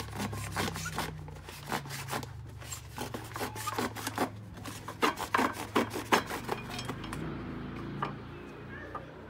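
A serrated knife sawing through a cardboard crisp tube near its metal base, in quick, repeated back-and-forth strokes. The strokes stop about seven seconds in, and a single knock follows near the end.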